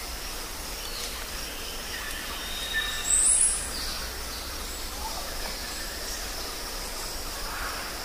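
Steady forest background hiss with faint, scattered bird calls. About three seconds in, a brief loud high-pitched call cuts through.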